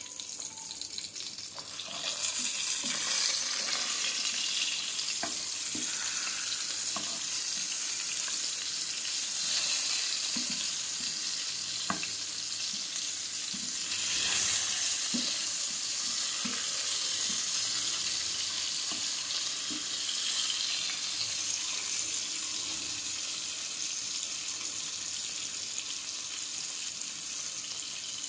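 Hilsa fish steaks sizzling in hot oil in a frying pan. The sizzle swells about two seconds in and again around fourteen seconds, with scattered small pops and clicks.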